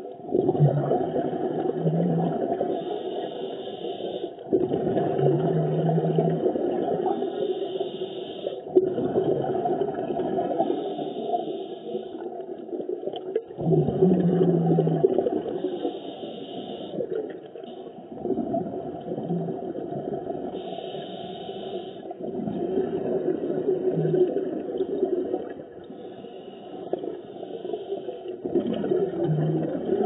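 Underwater recording of a scuba diver breathing through a regulator. The rushing, gurgling bubble noise of each exhale alternates with breath sounds, repeating in cycles about every four seconds.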